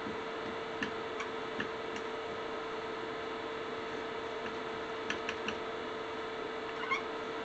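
Marker writing on a whiteboard: faint scattered taps and clicks of the tip, with a couple of short squeaks near the end, over a steady hum.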